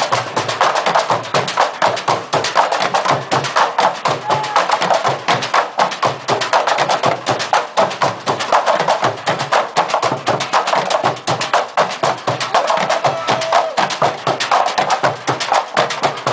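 Street percussion band beating drums made from recycled blue plastic barrels and white plastic jugs with sticks: a dense, fast, steady rhythm of many strokes.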